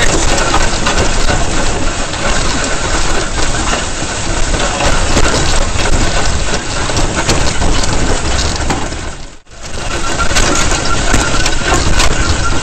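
Sleds being towed fast over packed snow: a steady noisy rush of runners over the snow with the towing vehicle's engine running underneath. The sound cuts out for an instant about three quarters of the way through.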